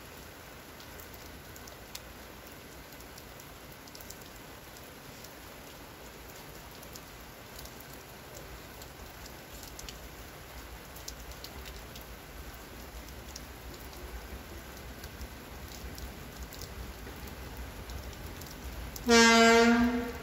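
Steady rain falling. About 19 s in, the approaching TEM2 diesel shunting locomotive sounds its horn: one loud blast of a single low tone, about a second long.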